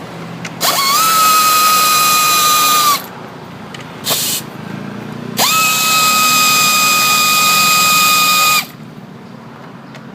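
Cordless drill/driver whining as it spins up and runs steadily, backing out the bolts of an engine cover. It runs in two long stretches of about two and a half and three seconds, with a short burst between them, and each stretch cuts off abruptly.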